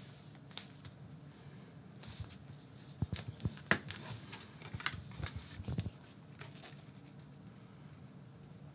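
Soft clicks and taps of a glue stick and kraft-cardboard card pieces being handled on a cutting mat: the glue stick is put down, then the card is picked up, pressed and folded. Most of the taps fall in the middle of the stretch, over a faint steady low hum.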